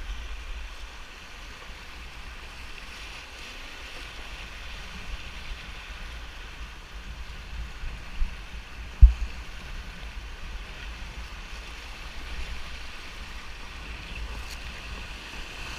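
Steady rush of river water around a raft, with wind rumbling on the microphone and a single sharp low thump about nine seconds in.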